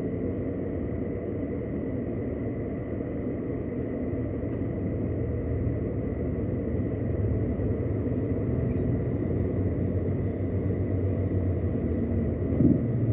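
Steady low rumble of a car idling and creeping in slow traffic, heard from inside the cabin, with a faint steady high tone and a brief louder knock near the end.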